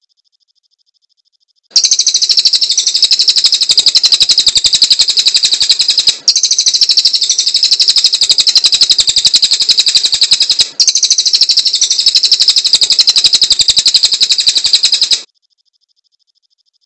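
Cililin songbird singing a very rapid chatter of repeated high notes. It comes in three long runs with two brief breaks and stops abruptly near the end.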